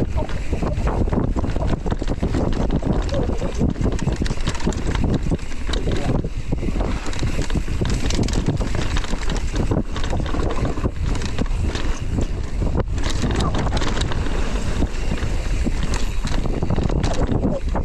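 Wind rushing over the microphone during a mountain-bike ride down a trail, with a low rumble and frequent small knocks and rattles from the bike on rough ground.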